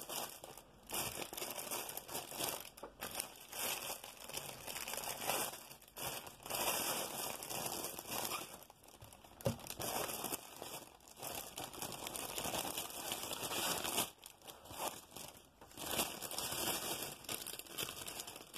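Clear plastic packaging crinkling as a diamond painting kit is unwrapped and handled, in irregular bursts with short pauses between.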